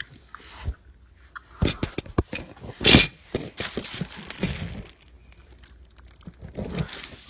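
A string of light knocks and thumps, with a short louder rushing noise about three seconds in.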